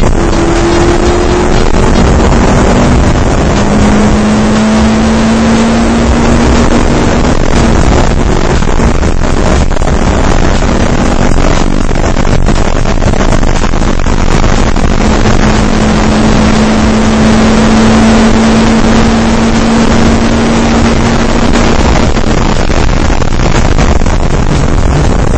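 Race car engine at high revs, recorded from an onboard camera, its pitch holding steady for several seconds at a time and shifting a few times, under loud wind and road noise.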